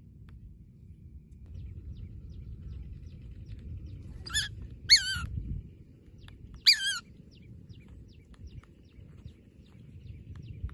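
A small bird of prey gives three short, harsh, high calls, two close together a little past the middle and one more about two seconds later, each falling and wavering in pitch. A steady low rumble runs underneath.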